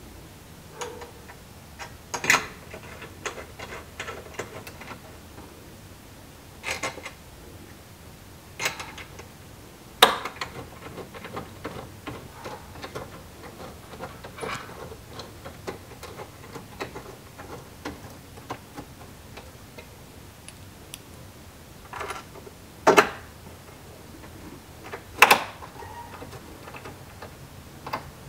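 Irregular small metal clicks and taps, with a few sharper clacks, as bolts are handled and set into the T-nuts of aluminium 80-20 extrusions on a metal platform.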